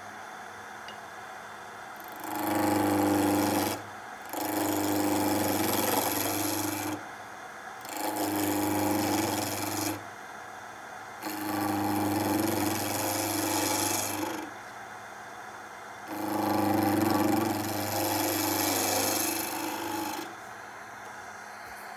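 A gouge cutting a table-leg spindle turning on a wood lathe, in five passes of one and a half to four seconds each with quieter gaps between. The gouge is finishing the square-to-round transition on the leg, up to the corner already incised by a skew.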